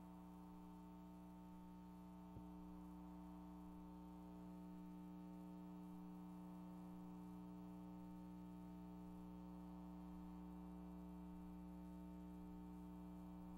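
Near silence: a steady low electrical hum, with one faint click about two seconds in.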